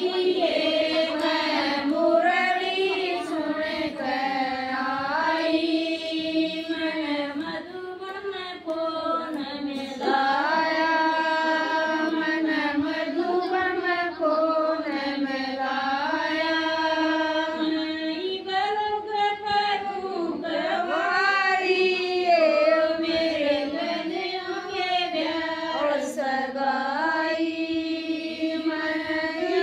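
A woman singing a Hindu devotional bhajan unaccompanied, in long, held, wavering phrases with short breaks between lines.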